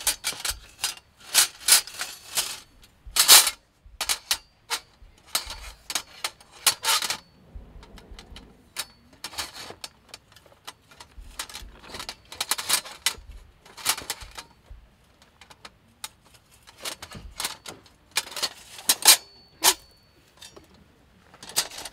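Stainless-steel parts of a Snow Peak fire pit SR clattering and clinking as they are handled and slotted together, in irregular bursts of sharp metallic knocks. A piece rings briefly about seven seconds in and again near the end.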